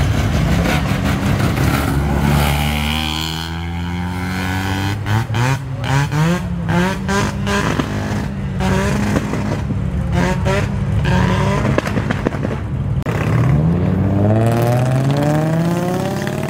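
Cars accelerating away along a road, their engines revving up in pitch through several gear changes, with another car revving up near the end.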